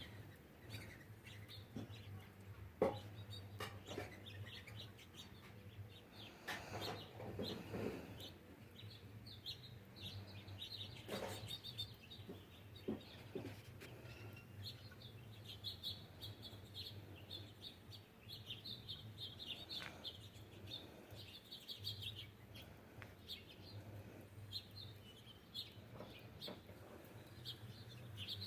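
Small songbirds chirping and twittering at backyard seed feeders, many short calls overlapping, over a steady low hum.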